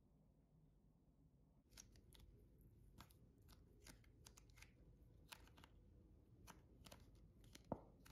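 Faint crackling and clicking of a cream package being squeezed out into a stainless steel pot, starting about two seconds in, with one louder knock near the end.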